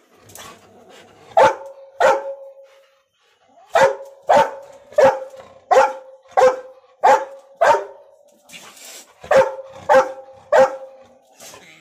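A dog barking over and over, about one bark every two-thirds of a second, in three runs with short pauses between them.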